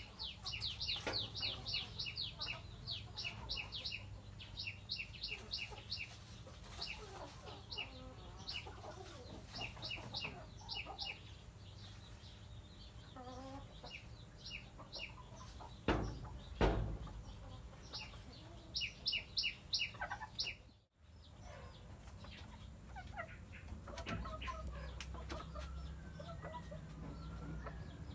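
Domestic hens clucking softly while brooding, with bursts of rapid high chirping repeated several times a second. Two sharp thumps just past the middle.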